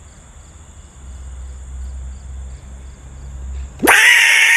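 Crickets chirping, a steady high trill with regular pulses about twice a second. Near the end a sudden loud, shrill, pitched cry cuts in for under a second and stops abruptly.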